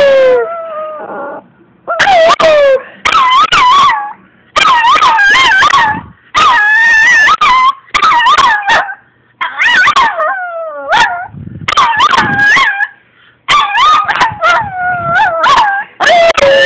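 Chihuahua puppy howling in a string of short, wavering howls with brief breaks between them, a few sliding down in pitch.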